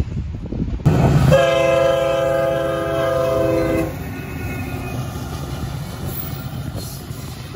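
CN freight locomotive horn sounding one long chord of about two and a half seconds at a grade crossing, then the locomotive and rail cars rumbling past.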